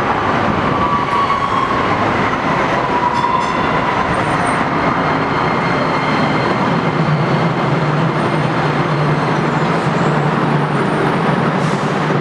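DART light-rail train arriving at the station: steady rumble of the train on the rails, with a whine that falls in pitch over the first few seconds, then a steady low hum from about seven seconds in.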